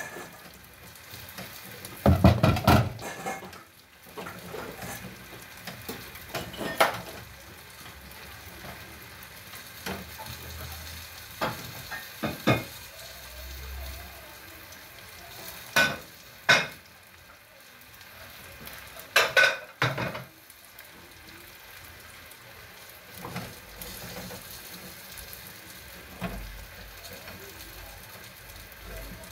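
Wooden cooking stick stirring and pressing stiff ugali in a metal pot on a gas stove: scraping and soft slaps, with a sharp knock of the stick against the pot every few seconds, over a steady hiss.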